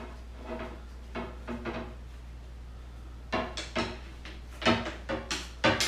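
Shop rag rubbing over an epoxy-smeared EVA foam rod grip in several wiping strokes, with short squeaks, cleaning off excess epoxy with denatured alcohol. A steady low hum runs underneath.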